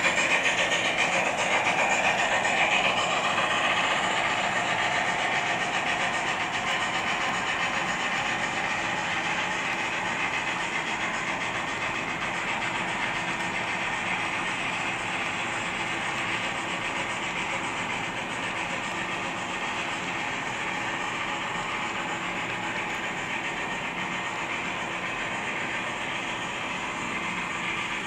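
HO-scale model GMAM Garratt steam locomotive's Loksound 5 sound decoder playing steam sounds through its small speakers, mixed with the rolling clatter of the model coaches' wheels on the track. The sound fades gradually as the train moves away.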